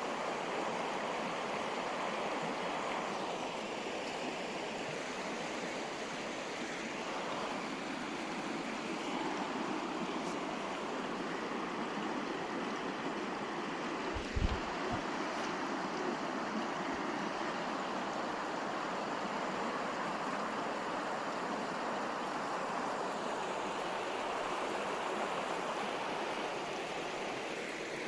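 River water flowing, a steady, even rushing with no break. A brief low thump about halfway through.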